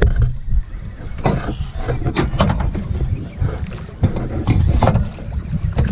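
Wind buffeting the microphone in an uneven low rumble, with water slapping against a small boat's hull and scattered sharp knocks.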